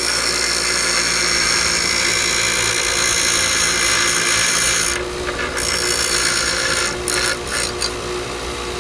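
Central Machinery 6-inch bench grinder's wheel grinding the tip off a wood screw held in vise grips: a steady grinding hiss over the motor's hum. About halfway through the screw is lifted off briefly and pressed back. Near the end it gets a few short touches before the wheel runs free.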